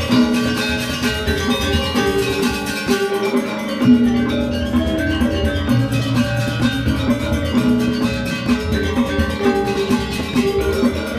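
Balinese gong kebyar gamelan playing: bronze metallophones ring out fast interlocking patterns over kendang drum, small kettle gongs and cymbals. The deep drum and gong part drops away briefly around three seconds in and returns with a loud accented stroke about four seconds in.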